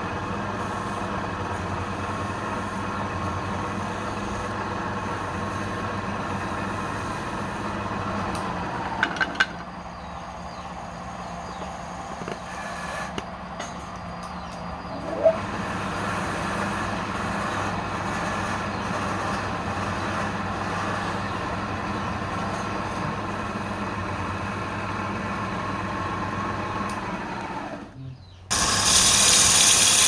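Wood lathe motor running with a steady hum, with a few light clicks partway through. Near the end it cuts out for a moment, then a loud, even rasping of a tool or sandpaper on the spinning wood starts.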